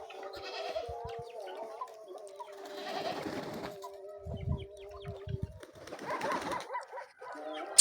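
Pigeons cooing in a low, drawn-out drone, with a sharp click near the end.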